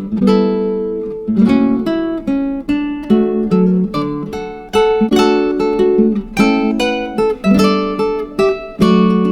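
Background music on acoustic guitar: a run of plucked and strummed notes, each struck sharply and left to ring.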